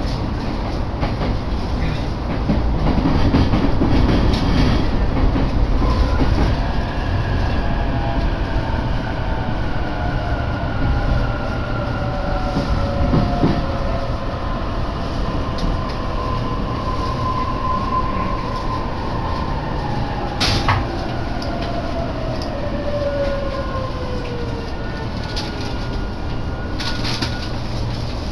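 Electric commuter train heard from inside the car: a low rumble of running on the rails, then a motor whine that falls slowly in pitch as the train slows for the station. One sharp clack about twenty seconds in.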